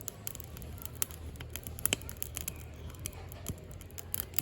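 Firewood burning in a Hillscam Firenado Large fire pit, crackling with irregular sharp pops and snaps over a steady low rumble.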